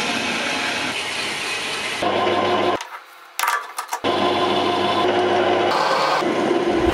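Metal-cutting band saw running through a rusty steel round bar, a steady cutting noise. After a short drop about three seconds in, a metal lathe runs with a steady hum as it turns and drills a round workpiece.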